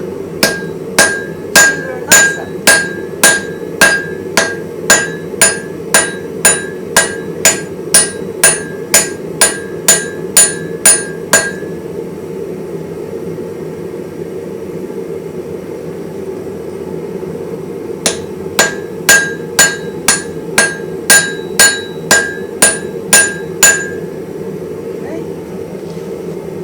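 Hammer blows on steel at an anvil while forging a hardy tool, about two strikes a second, each ringing briefly. A long run of blows stops about eleven seconds in, and a shorter run starts again after a pause of about seven seconds. A steady low hum runs underneath.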